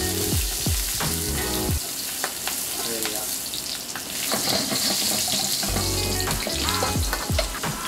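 Oil sizzling with sliced ginger and chives in a very hot carbon steel wok, stirred and swirled with wooden chopsticks as the oil is burnt in to season the wok. The sizzle is a steady hiss.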